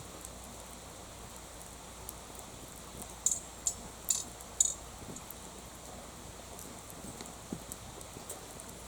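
Wood fire crackling, with a quick run of four sharp, loud pops about three to four and a half seconds in.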